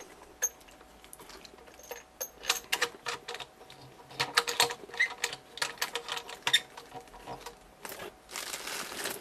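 Quick, irregular clicks and light rattles of power and antenna cable plugs being fitted to the back of a CB radio. About eight seconds in there is a brief scraping rustle as the radio is moved in its box.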